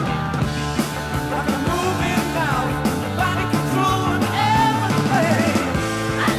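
Rock and roll music with a singing voice.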